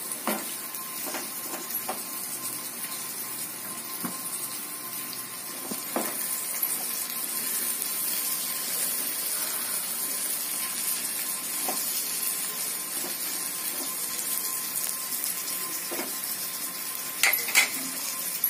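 Masala-stuffed brinjals frying in oil in a nonstick kadai, a steady sizzle, with occasional light taps of a spatula against the pan and two louder knocks near the end.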